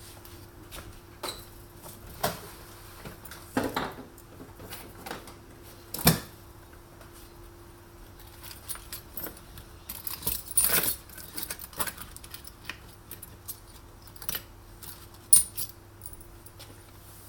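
Irregular clicks, clinks and light metallic rattles of small screws, metal parts and hand tools being handled while dismantling an espresso machine, with a jangling cluster about ten seconds in and sharp knocks about six and fifteen seconds in.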